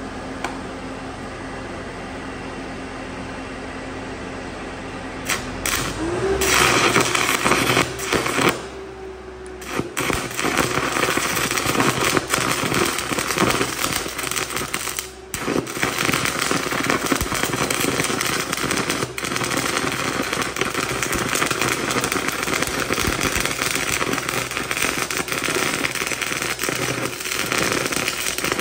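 An engine-driven 800-amp welder hums steadily, then its engine speeds up as an arc is struck about five seconds in. A stainless steel tube used as the electrode, with 75/25 argon-CO2 shielding gas fed down its center, burns with a loud, crackling high-amperage arc. The arc breaks off once for about a second near nine seconds and dips briefly near fifteen seconds.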